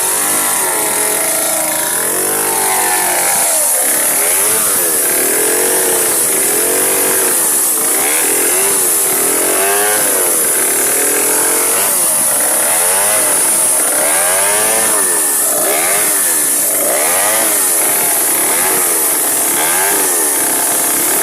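Stihl gasoline chainsaw engine running, revved up and down over and over, its pitch rising and falling about once a second.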